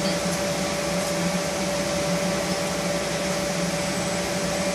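Mechanical bull ride's electric machinery running: a steady whir with a constant whine held on one note, unchanging throughout.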